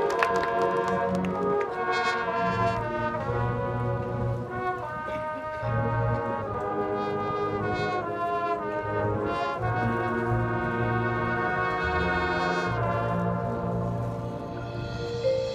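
Marching band brass section playing held chords that change every second or so, with low brass sounding underneath.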